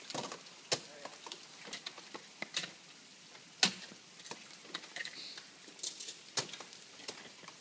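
Ice axes and crampons striking a frozen waterfall: sharp, irregular strikes every second or two, two of them louder, with small ticks in between.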